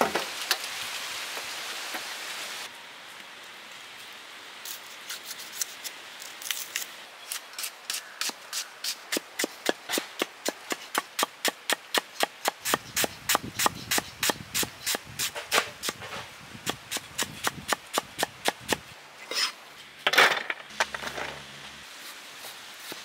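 Kitchen knife chopping red onions on a wooden stump block: a long run of quick, even knocks at about three a second, with a few louder knocks near the end. A few seconds of rasping noise open the stretch.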